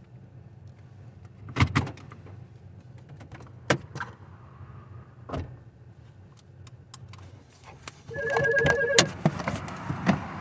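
Scattered handling clicks and knocks over a low rumble. About eight seconds in, a mobile phone starts ringing with a pulsing electronic tone, and the handling noise gets louder.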